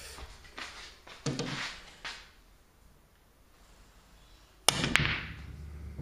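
A pool shot on a home pool table: two sharp clicks about a third of a second apart near the end, the cue tip striking the cue ball and the cue ball hitting an object ball by the pocket, followed by about a second of balls rolling on the cloth. Softer knocks and rustles come in the first two seconds.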